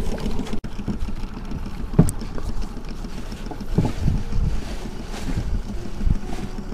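Wind buffeting the microphone over the rumble of a small fishing boat on the sea, with a few dull knocks about two seconds apart.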